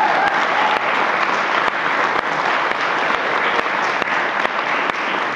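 Audience applauding steadily, dense clapping from many hands.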